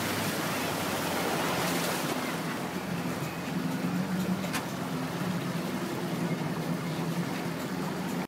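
Motorboat running at speed: a steady rush of wind on the microphone and churning wake water, with a faint steady engine hum underneath.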